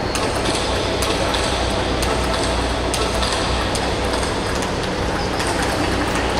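Table tennis balls clicking off bats and tables at irregular intervals, from more than one table in play, over a steady low background hum.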